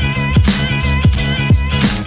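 Background music with a steady beat: an upbeat funk-style track with a deep kick drum about twice a second.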